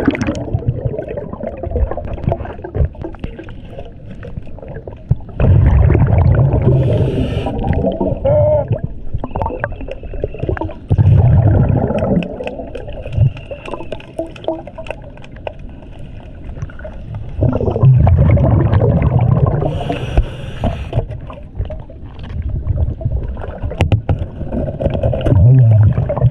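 Scuba diver breathing through a regulator underwater: four loud bubbling exhalations roughly every six seconds, with the hiss of an inhale twice, over a steady underwater wash.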